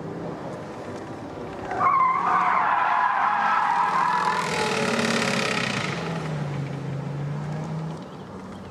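Volkswagen Jetta's tyres squealing as the car slides through a hard evasive turn: a loud, wavering squeal that starts suddenly about two seconds in and lasts about four seconds, with the engine running under it and heard alone after the squeal fades.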